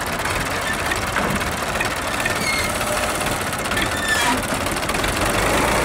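Tractor diesel engine idling steadily. A few faint, short high chirps sound over it about halfway through.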